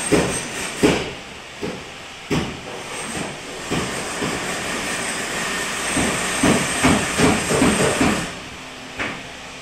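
Construction-site noise: a steady hiss with irregular knocks and bangs, coming in a quick cluster about six to eight seconds in.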